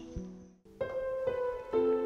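Background film music on a keyboard: the notes fade out almost to nothing, then new sustained piano-like notes come in just under a second in and change about every half second.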